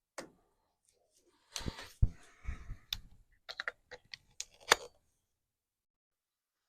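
A quick, irregular run of sharp clicks and knocks lasting about three seconds, then they stop: hands handling the jump box and gear.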